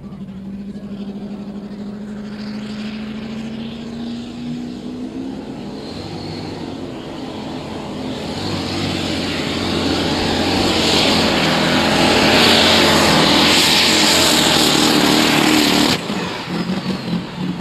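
Modified pulling tractor's V8 engine revving up, its pitch rising, then running flat out under load as it pulls the brake sled, getting steadily louder. The sound drops away suddenly near the end.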